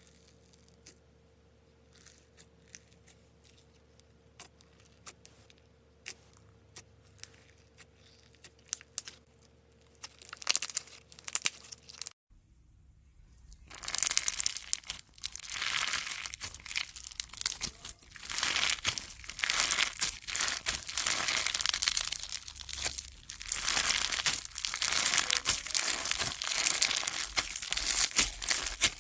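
Faint scattered clicks for about twelve seconds, then, after an abrupt cut, a dense, loud crackling and crinkling, as of a crunchy material being squeezed or pressed.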